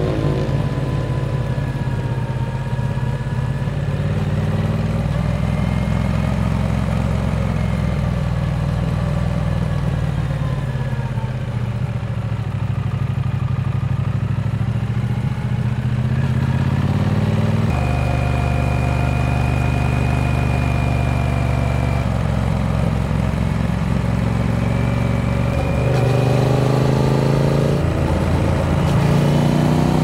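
Triumph Speed Twin 900's parallel-twin engine running under way at road speed, heard from the rider's seat. Its note steps abruptly to a new pitch about two-thirds of the way through and again near the end.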